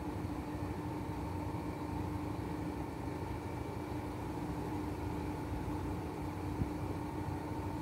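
AEG Öko-Lavamat L88840 and Whirlpool FSCR70420 front-loading washing machines running a rinse-and-spin cycle side by side: a steady motor hum with a constant whining tone. One click comes about two-thirds of the way through.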